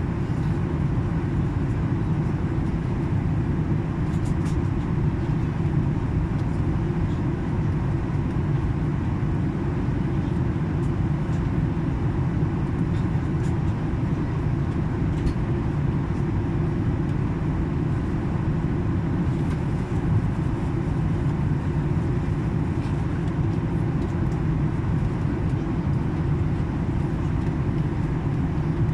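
Airliner cabin noise in flight: a steady low rumble of engines and airflow, even throughout, with a few faint ticks.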